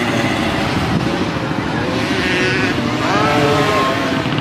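65 cc two-stroke motocross bike engines running hard at high revs, the pitch rising and falling with the throttle as the bikes race along the dirt track.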